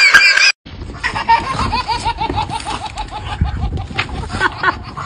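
A baby laughing in a long string of quick, even 'ha-ha' bursts, about five a second. Before it, a loud burst of laughter cuts off suddenly about half a second in.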